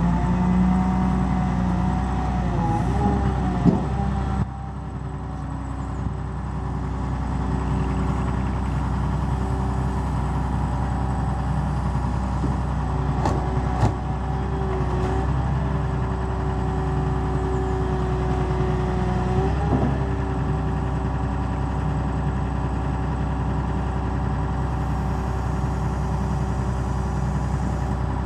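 Caterpillar M318C wheeled excavator's diesel engine running steadily with its hydraulics working as the boom is lowered to set the bucket down. The running note wavers briefly a few times, and there are a few sharp knocks, one about four seconds in and two more near the middle.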